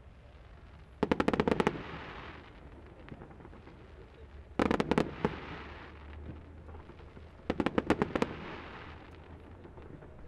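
Fireworks going off in three rapid volleys of sharp bangs, each a quick string of several reports lasting under a second, about three seconds apart. Each volley dies away over about a second.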